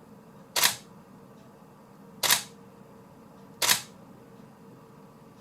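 Canon 5D Mark III DSLR taking three single shots, its mirror and shutter clacking each time, about a second and a half apart. This is a test firing of the camera after repair.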